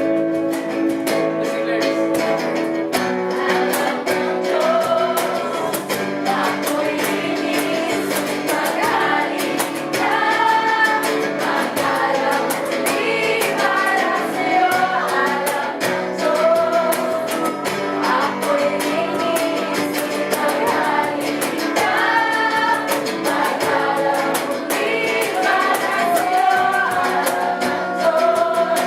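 Worship music: voices singing a slow song over guitar and other instruments.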